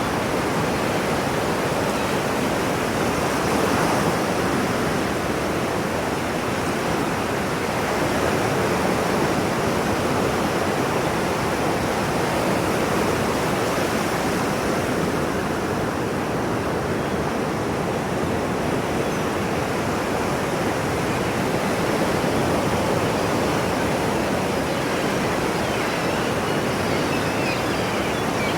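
Ocean waves washing on a shore as a steady rushing noise, swelling gently every few seconds, used as a sleep sound.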